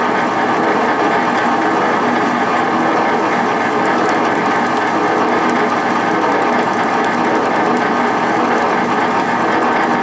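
Sears Craftsman 15-inch metal-cutting bandsaw running steadily at its fastest belt setting: electric motor, V-belt pulley drive and blade turning at about 215 feet per minute, a steady mechanical hum.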